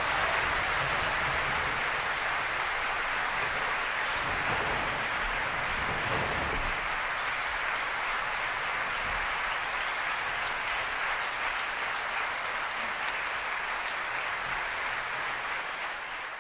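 Audience applauding steadily, the many claps merging into an even wash; it starts to fade right at the end.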